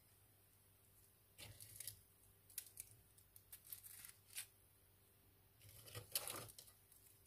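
Faint crinkling and rustling handling noise in three short spells, as crisp fried fritters are moved about on a wooden board.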